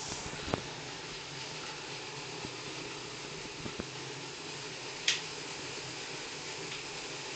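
Steady whirring hum of a road bike's tyre spinning on a bicycle roller trainer while the rider pedals, with a few light clicks and one sharp click about five seconds in.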